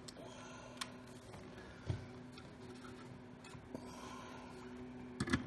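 Faint handling noise: a few sparse clicks and one light knock as the sheet-metal blower housing and a cordless drill are handled, over a steady low hum.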